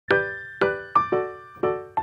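Background instrumental music: a keyboard melody of single struck notes, about six in two seconds, each ringing and fading before the next.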